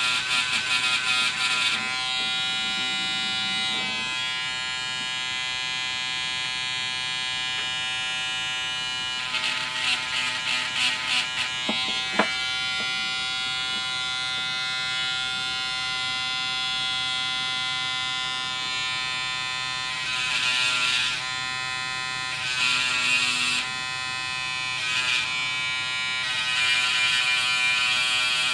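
SLITE mini linear electric sander pen running steadily at high speed, with several louder, rougher spells as its coarse-grit pad is pressed against plastic model-kit nubs and sands through them. A single sharp click about twelve seconds in.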